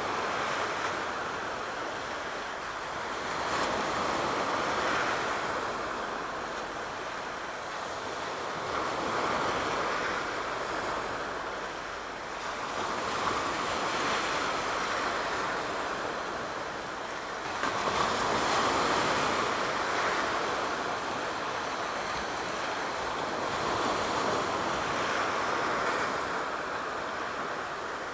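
Aegean Sea surf washing in, the noise of the waves swelling and falling back about every four to five seconds.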